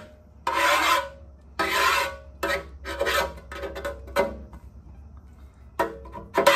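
A hand scraping and wiping oily sludge along the inside of a Dodge T245-A engine's steel oil pan, in a series of short rough strokes with a pause near the end.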